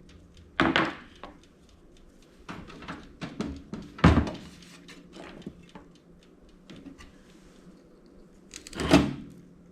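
Wire cutters clipping the wiring inside a toaster oven's steel chassis: scattered clicks and three louder thunks, the loudest about four seconds in.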